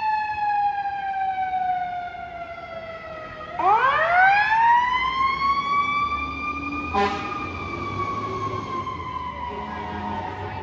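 Fire truck siren winding down, then spun back up about three and a half seconds in, its pitch rising and then slowly falling again. A short horn blast comes about seven seconds in, over the low rumble of the trucks' engines pulling out.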